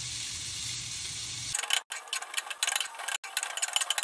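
Brussels sprouts and onion frying in hot fat in a cast-iron skillet: a steady sizzle, then from about a second and a half in a sharper, denser crackling and popping as tongs stir the pan.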